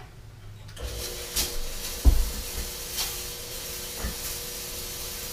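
Halloween-store fog machine firing: a steady hiss of vapour over the hum of its pump, starting about a second in. Two dull knocks are heard, about two and four seconds in, the first the louder.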